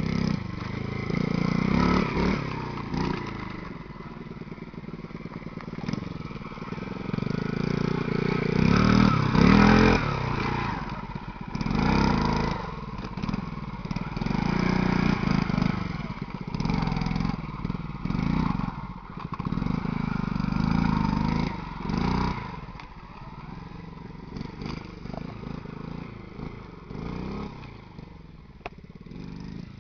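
Honda Monkey 50 minibike's small four-stroke single-cylinder engine, revved up and eased off again and again while being ridden over dirt mounds. It grows quieter in the last several seconds as the bike moves off.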